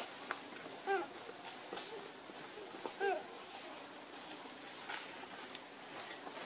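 Two short calls from a baby macaque, about two seconds apart, each rising and falling in pitch, over a steady high buzz of forest insects.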